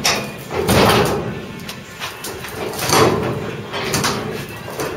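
Caster wheels of a dolly loaded with a car body shell rolling over small stones on the garage floor: a gritty rolling rumble that swells and fades in several pushes.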